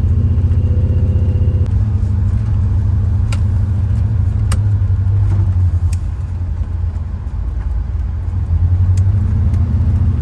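Old camper's engine running, heard from inside the cab: a steady low drone with a few light clicks in the middle.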